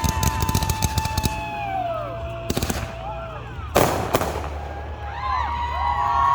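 Aerial fireworks: a dense crackle of small pops for the first second, a short cluster of bangs, then one loud bang just before the middle. Whistling tones hold and glide around them, more of them near the end.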